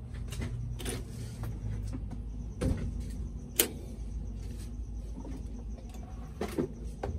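Scattered light clicks and knocks of objects being handled off camera, with a sharp click about three and a half seconds in and a low hum during the first two seconds.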